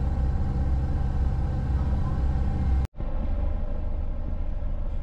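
Tour boat's engine running with a steady low drone. It cuts out for an instant about three seconds in and then carries on.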